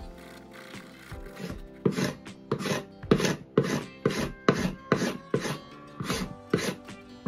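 Hand scraper drawn repeatedly along an oak board, scraping off the old dark finish: a run of rasping strokes, about two a second, starting about two seconds in.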